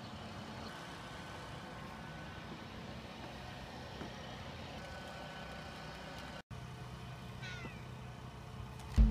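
Quiet outdoor background noise with faint steady tones, cut by a brief drop-out about six and a half seconds in, then a faint short animal call about a second later.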